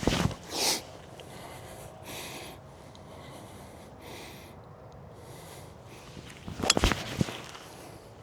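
Golf mini driver striking a ball off the tee with a single sharp crack about seven seconds in, followed by a smaller click. There are a few short knocks at the start and soft wind noise on the microphone between them.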